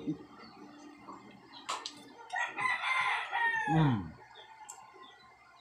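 One long pitched animal call about two and a half seconds in, lasting under two seconds and dropping in pitch at the end.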